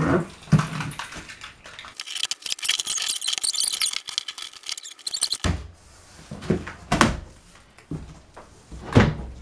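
Packing tape on a cardboard box being slit open with a car key and ripped, a crackly scraping rasp lasting about three seconds, followed by the cardboard flaps being pulled open with several dull thuds.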